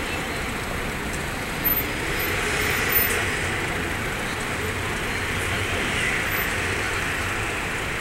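Steady street traffic noise from passing cars, with a couple of brief knocks about two and three seconds in.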